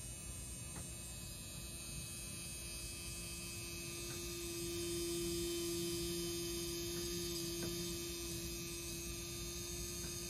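Small electric motor spinning a scale model monoplane's propeller: a steady hum that swells louder for a few seconds in the middle.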